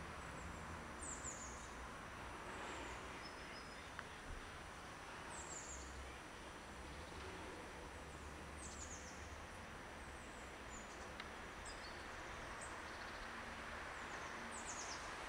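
Small birds giving short, high, thin chirps that fall in pitch, scattered irregularly, about ten in all, over a steady background hiss.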